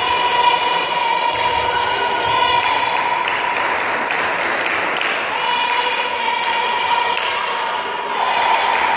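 Spectators in a sports hall chanting in long held notes, twice for a few seconds each, over repeated short thuds through the hall.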